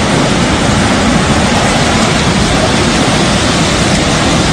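Flash-flood torrent of muddy water rushing past: a loud, steady rush of water noise.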